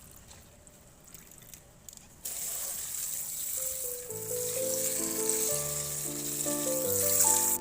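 Boiling water being poured off boiled banana blossom into a strainer: a steady rushing splash that starts suddenly about two seconds in. Background music comes in under it a little later.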